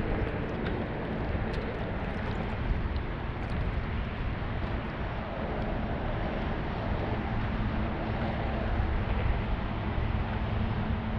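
Steady wind noise on the microphone on an open jon boat, with a few faint ticks in the first few seconds.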